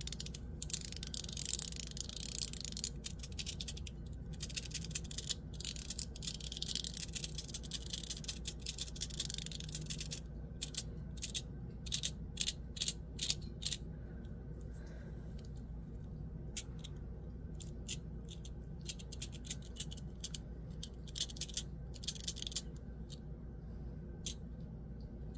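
Fidget-toy packaging being opened and handled: a long stretch of crinkling and rustling of wrapping, then a run of sharp clicks and taps that thins out to occasional ones, over a faint steady hum.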